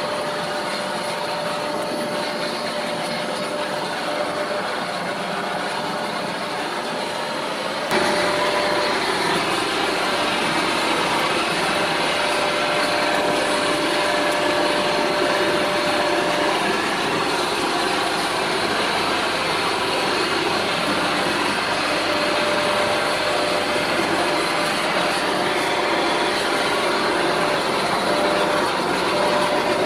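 Steady hiss of a butane blow torch burning the surface of a wooden vase turning on a wood lathe, over the lathe motor's hum with a faint steady whine. The sound steps up louder about eight seconds in.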